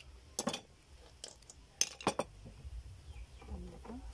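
A steel knife blade clicking and clinking against oyster shells as an oyster is pried open. There are several sharp clicks in the first half, the loudest about two seconds in.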